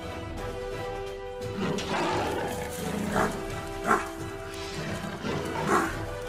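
Leopards snarling and growling as they fight, with harsh calls starting about a second and a half in; three of them are short, sharp and louder than the rest. Background music plays underneath.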